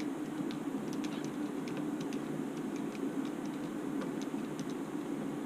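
Faint scattered ticks and clicks of a small hand driver working the screws and lock nuts in the plastic tail boom mount of an RC helicopter, over a steady low hum.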